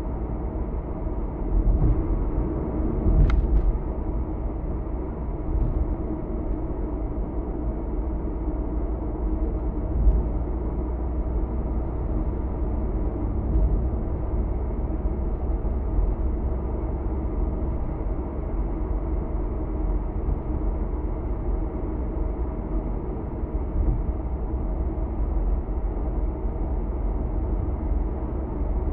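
Steady low road and engine noise of a car cruising on an expressway, heard from inside the cabin, with one short click about three seconds in.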